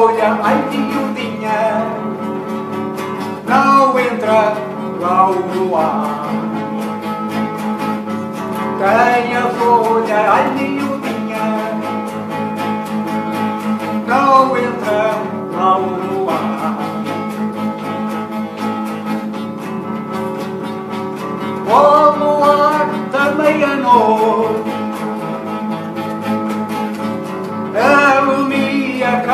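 Classical nylon-string guitar strummed steadily while an older man sings, in phrases of a few seconds with strummed gaps between them.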